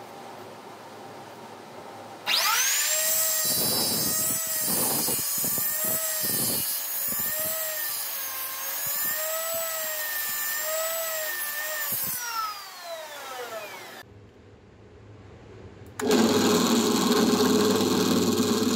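Electric miter saw starting about two seconds in and cross-cutting a plum log, its whine wavering as the blade bites, then winding down with a falling pitch. After a short pause a drill starts boring into the log near the end.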